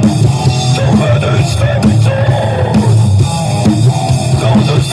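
Live rock band playing loudly without vocals: a drum kit keeping the beat under electric guitar.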